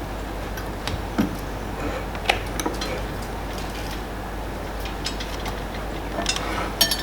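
Spoons clinking and tapping against dishes and jars: a few separate taps in the first three seconds, then a quicker run of clinks near the end.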